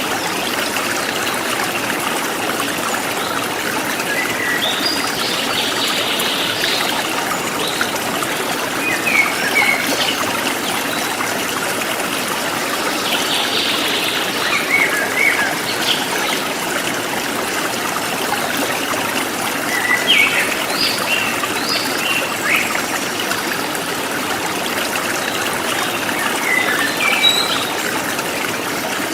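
A forest stream trickling and splashing steadily, with birds chirping in short scattered calls over it.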